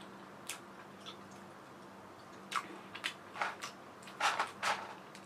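Someone chewing a mouthful of food with lips closed: soft, scattered wet clicks and smacks that come more often in the last second or two, over a faint steady hum.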